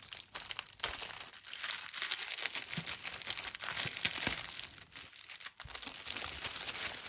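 Clear plastic bag around a cross-stitch kit crinkling and crackling as hands press on it and pull at its edge, a steady run of small crackles with a few louder ones.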